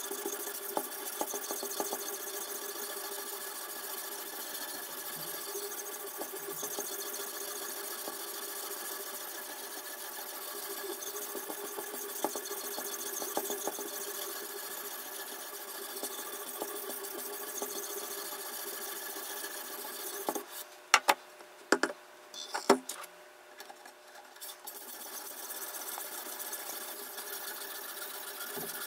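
Sharpening stone on a toohr #2 guided-rod knife sharpener scraping back and forth along a clamped steel kitchen knife edge in a steady run of strokes. About two thirds of the way through the scraping stops for a few seconds, broken by several sharp clicks and knocks as the knife is turned over in the clamp, then the scraping resumes near the end.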